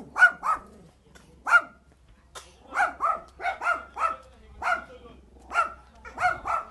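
A small dog barking over and over behind a fence: about a dozen short, high-pitched barks, some single and some in quick pairs.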